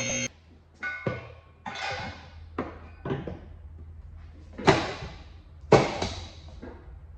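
Car lift raising a car: the lift's motor hums steadily under a series of irregular metal clunks, two of them loud about five and six seconds in, and the hum drops away near the end.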